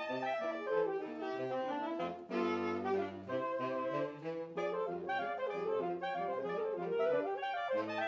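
Saxophone quartet playing a ragtime piece: several saxophone parts at once, quick running notes over a lower bass line.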